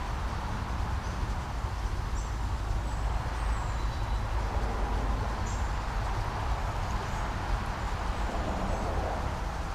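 Steady low outdoor rumble on the microphone, with a few faint, short, high bird chirps now and then.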